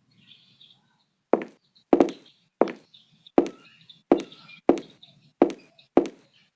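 A steady series of hard thumps, about three every two seconds, each with a short ring, starting about a second and a half in.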